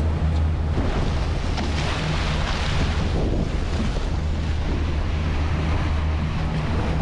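Steady low drone of outboard motors on a boat under way, with wind buffeting the microphone and the wake's water rushing.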